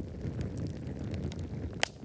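Wood campfire burning: a low steady rumble with small crackling snaps throughout, and one sharp, loud pop near the end.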